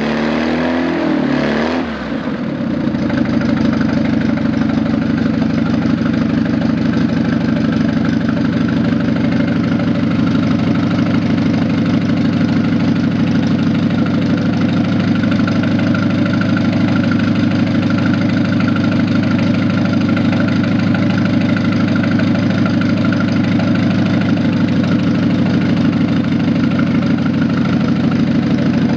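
GAZ M-21-type inline-four engine with 88 mm pistons, its pitch wavering for the first couple of seconds as it comes up to speed, then settling into a steady idle.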